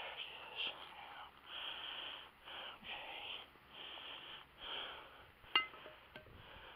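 A person breathing heavily and rapidly close to the microphone, about one breath a second, with a single sharp click near the end.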